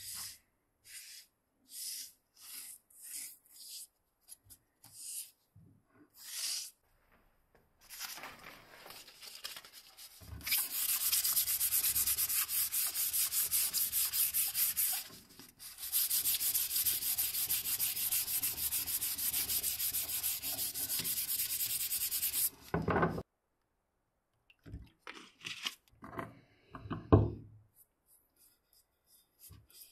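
A wooden axe handle is rubbed down by hand with an abrasive pad in fast, steady back-and-forth scrubbing, with one brief pause midway. Before it, a wool dauber makes short brushing strokes as it lays stain on the wood. After it stops there are a few soft touches and one sharp knock near the end.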